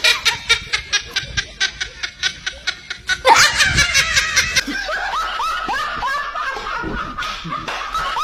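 Laughter in rapid, even pulses, about seven a second, breaking out louder again about three seconds in, then giving way to softer chuckling.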